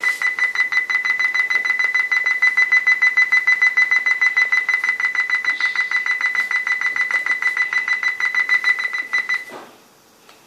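Toshiba Satellite P745 laptop giving an unexplained fault beep: one high beep repeated rapidly and evenly, many times a second, that stops about nine and a half seconds in. The laptop is also dropping its wifi and changing its volume on its own.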